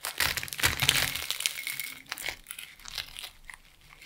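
Knife cutting through the crisp, flaky puff-pastry crust of a baked sausage roll: crackling and crunching, loudest in about the first second, then thinning to fainter scattered crackles.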